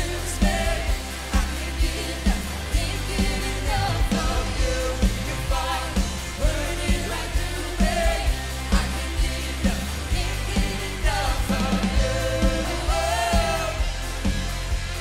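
Contemporary worship band playing a song with singing over a steady drum beat and bass.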